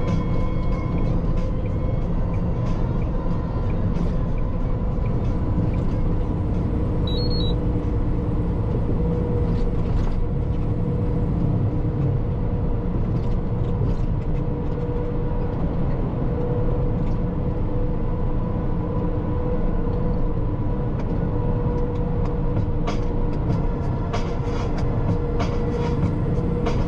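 Semi-truck cab at highway cruising speed: the diesel engine's steady drone mixed with tyre and road noise, with a constant hum.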